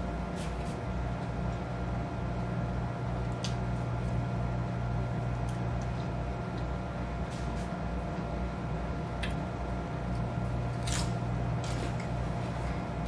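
A steady low electrical hum, with a few faint short clicks and smacks from chewing scattered through it.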